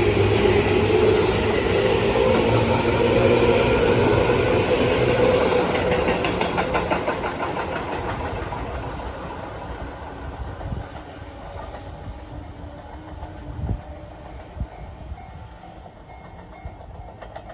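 Tobu 9000 series electric train with armature chopper control running: a steady chopper tone over rumbling noise, then wheels clicking rhythmically over rail joints as the whole sound fades away over several seconds, leaving only faint knocks.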